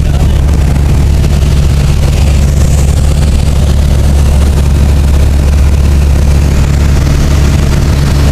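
Light airplane's engine and propeller droning steadily in flight, heard from inside the cabin as a loud, even hum.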